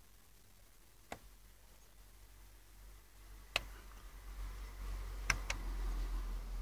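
Plastic buttons on an Opel CD70 Navi car radio clicking as they are pressed: a single click about a second in, another midway, then two quick clicks near the end. A low rumble grows underneath in the second half.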